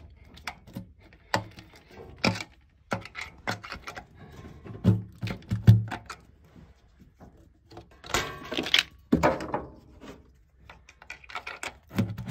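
A run of irregular knocks, taps and clicks, then a longer metallic scrape about eight seconds in. This is hand work on a stuck piston in a Holden 308 V8 block, one whose connecting rod has snapped, as it is levered out from the top of the bore.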